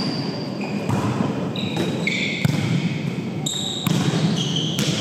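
Volleyball rally in a gym: athletic shoes squeaking on the court floor in several short, high squeaks of differing pitch, with a few sharp hits of the ball.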